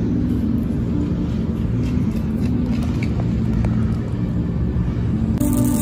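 Steady low rumble, with a few faint small clicks; music starts near the end.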